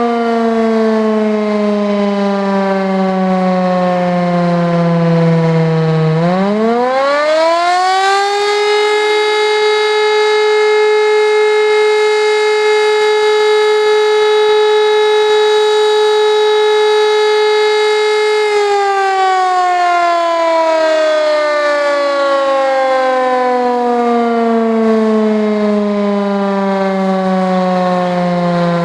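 WWII-era Elektror L1 electromechanical motor siren, its 9-port high-tone unit sounding the interrupted fire-alarm signal. The wail falls slowly as the rotor coasts down. About six seconds in the motor cuts back in and the pitch climbs quickly to a steady high tone held for about ten seconds, then falls slowly again as it coasts down once more.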